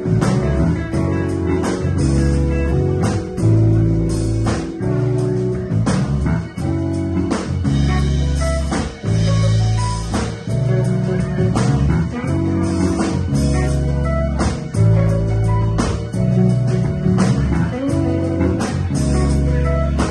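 A live band playing: drum kit, electric bass guitar, electric guitar and keyboard, with a steady beat and a strong bass line.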